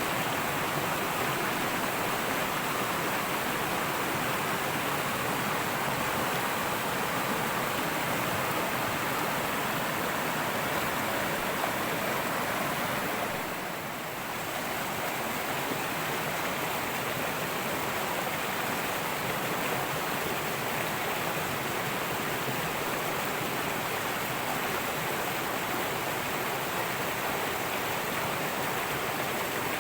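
Fast-flowing river running over rocks, a steady rush of water that dips briefly about halfway through.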